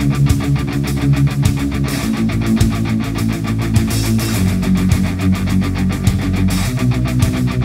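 Background music: a heavy rock track with electric guitar over a fast, steady beat.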